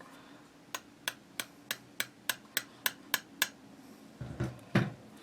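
A run of about ten light, evenly spaced clicks, about three a second, as small metal rifle-bolt parts are handled during reassembly, followed near the end by a low thump.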